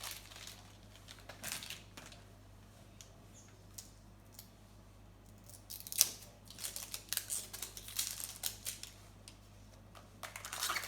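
Small plastic toy pieces and their packaging being handled: scattered rustles and light clicks, then a sharp click about six seconds in followed by a flurry of crinkling and clicking.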